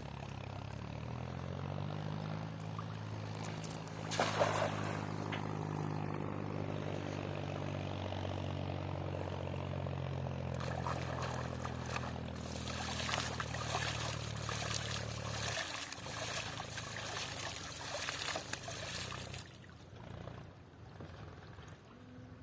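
A small engine running at a steady pitch, then cutting off suddenly about two-thirds of the way through, along with water pouring and splashing.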